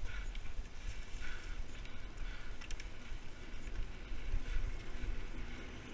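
Mountain bike rolling fast down a dirt singletrack strewn with dry leaves: tyre and trail noise under wind buffeting the microphone, with a few sharp clicks and rattles from the bike.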